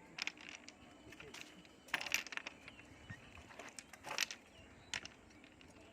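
A handful of sharp clicks and clinks of hard objects at uneven intervals, the loudest about two seconds in and again around four seconds.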